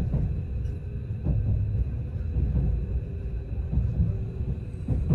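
Low, steady rumble of a moving vehicle heard from inside, such as a train or bus in motion.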